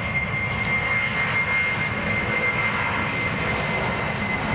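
Jet engines of a Boeing 747-400 freighter running steadily: a high whine over a low rumble.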